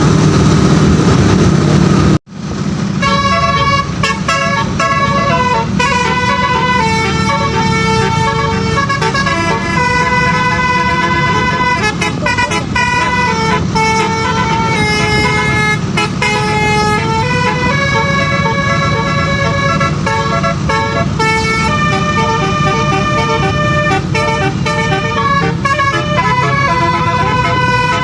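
A tour bus's multi-note telolet basuri air horn playing a continuous melody of held notes that step up and down in pitch, over steady engine and road rumble. The horn tune starts suddenly after a brief break about two seconds in.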